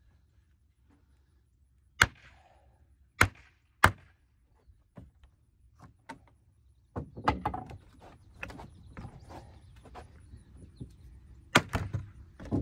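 Knocks and thunks on wood as the weathered wooden railing panel of an old swing set fort is worked loose: three loud sharp knocks in quick succession, then a stretch of rattling and clattering of the boards, and another loud knock near the end.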